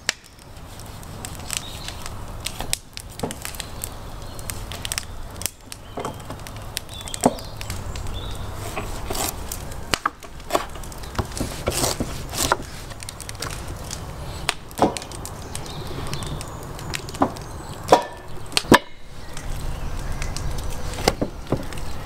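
A kitchen knife cutting raw beef ribs apart on a wooden cutting board: sharp, irregular knocks about once a second as the blade strikes the board, with the softer sound of the blade working through the meat between them.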